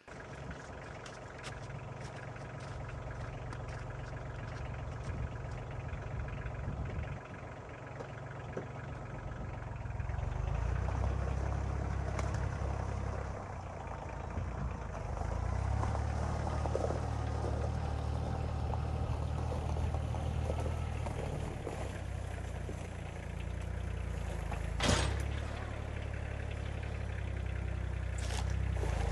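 Tractor engine running steadily, its note growing louder and heavier under load partway through, with one sharp knock a few seconds before the end.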